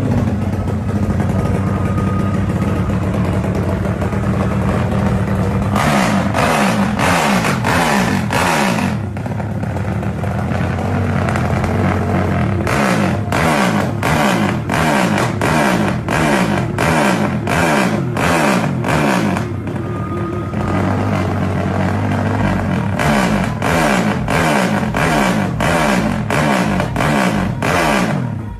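Drag-racing Honda Sonic motorcycle with a 500cc engine, running loud through its racing exhaust: a steady idle at first, then runs of rapid throttle blips that rise and fall in quick succession, with calmer idling between the runs.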